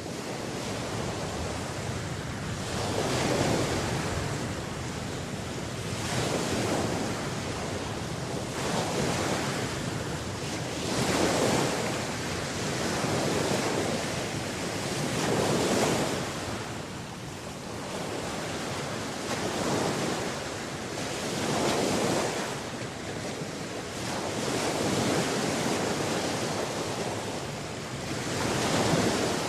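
Ocean surf: waves washing in and drawing back, the hiss swelling and falling away about every two to three seconds.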